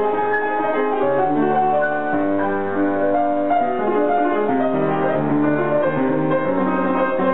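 Grand piano played: a flowing passage of several notes sounding at once, moving on every fraction of a second without a break.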